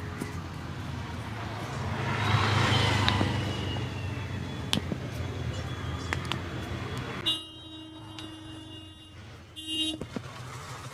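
Street traffic noise, then a vehicle horn sounds one steady honk of about two seconds, followed by a short second honk.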